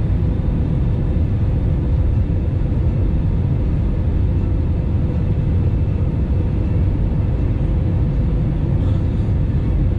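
Airbus A320 cabin noise on final approach: a steady low rumble of engines and airflow, with a faint steady hum above it.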